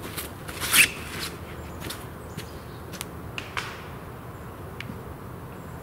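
Scattered clicks and rustles around a disc golf backhand throw, the loudest a sharp rustling hit about a second in, followed by several lighter clicks.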